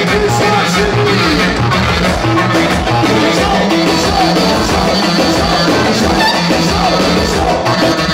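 Music with a steady beat and pitched instruments, with some singing.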